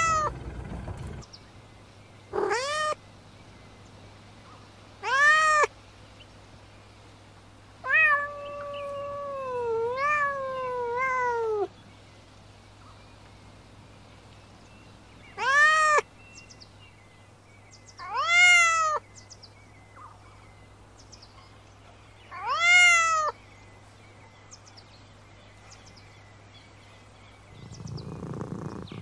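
Domestic cat meowing repeatedly, about seven meows a few seconds apart; the one about eight seconds in is long and wavering, lasting some four seconds.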